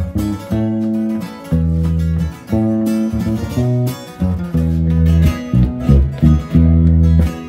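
Band playing the instrumental opening of a song: plucked and strummed guitar over a bass line of strong held notes that change about once a second.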